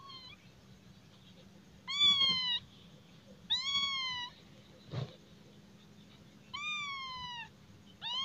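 Tabby kitten meowing: a brief cry at the start, then four high-pitched meows, each rising slightly and then falling in pitch. A soft thump about five seconds in.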